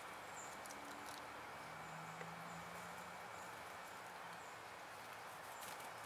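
Quiet outdoor ambience: a steady soft hiss with a few brief clicks and faint, short, very high peeps repeating every half second or so.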